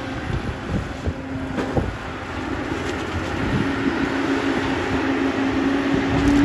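Cat 324D long-reach excavator working: its diesel engine runs under load with a steady tone that grows louder as the boom swings over to the spoil pile. There are two sharp knocks about a second and a half in.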